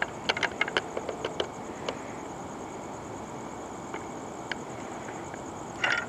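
Crickets chirping steadily, a continuous high pulsing trill over a faint background hum. Several small sharp clicks and taps come in the first second and a half, and there is a brief rustle near the end.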